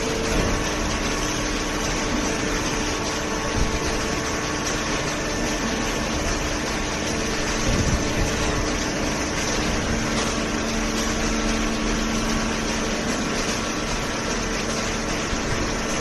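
Cardboard baling line running, an inclined conveyor feeding a horizontal hydraulic baler: steady mechanical noise with several constant hums.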